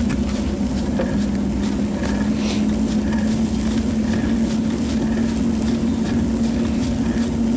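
Steady motor drone with one constant hum, under road and wind noise from a vehicle moving along a street. A faint short beep repeats about once a second.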